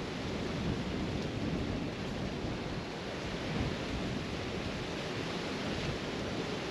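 Steady rushing noise with a low rumble underneath and no distinct events.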